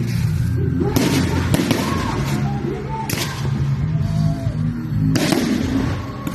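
Fireworks going off: several sharp bangs, about four loud ones, spread unevenly over a steady low rumble.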